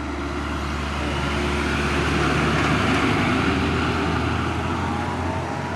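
A road vehicle passing by, its engine and tyre noise growing louder to a peak about three seconds in, then fading away.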